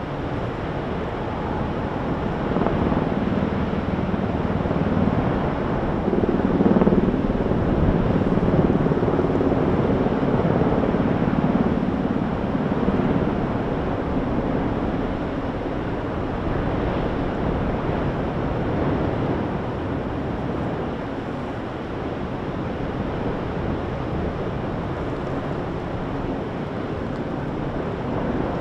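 Steady, rushing roar of the Fissure 8 lava fountain erupting, swelling louder from about three to thirteen seconds in.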